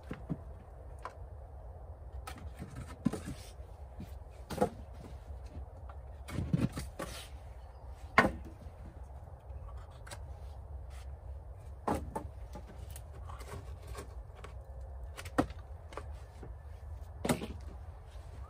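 Wooden poles and boards being wrenched and knocked loose from a storm-damaged timber cabin wall: scattered sharp knocks and cracks, the loudest about eight seconds in, over a steady low rumble.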